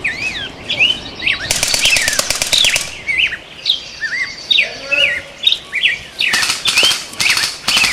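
Airsoft rifles firing rapid full-auto bursts: one long burst about a second and a half in, and two shorter ones near the end. Birds chirp throughout.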